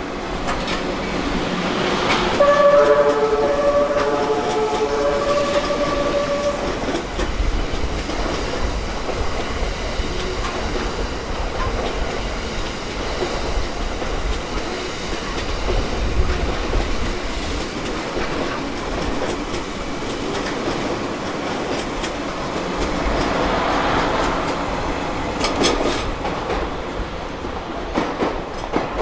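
Melodic music horn of the JR East E001 series TRAIN SUITE Shiki-shima playing a short tune of several notes, starting about two seconds in and lasting about four seconds. It is followed by the steady noise of the train running on the rails, with a few clicks near the end.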